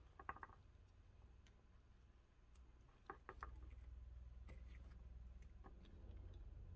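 Faint handling noise: two quick clusters of light clicks, about a third of a second in and about three seconds in, and a few scattered taps as tape is wrapped around a glued wood block and a metal bar clamp is set on it, over a low steady hum.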